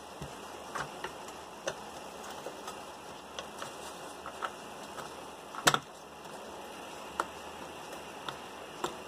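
Plastic fog-light housing being pushed into its bracket by hand: scattered light clicks and taps as the mounting clips snap on, with one louder snap a little past halfway.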